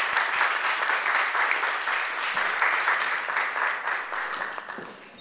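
Audience applauding, a dense patter of many hands clapping that holds steady and then fades away over the last second or so.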